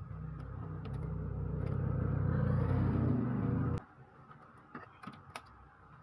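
An engine running steadily with a low hum, growing louder and then cutting off suddenly a little under four seconds in. Afterwards only faint clicks and taps of plastic printer parts being handled.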